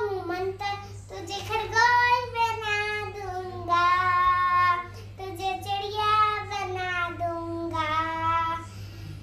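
A young girl singing a children's rhyme solo, in phrases with long held notes and short breaths between them.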